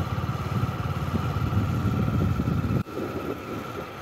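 A vehicle in motion on a road: low engine and road rumble with wind on the microphone and a steady faint whine over it. The rumble drops suddenly about three quarters of the way through.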